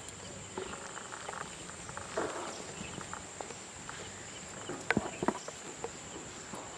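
Insects chirring in a steady high drone, with some rustling and a few sharp clicks about five seconds in.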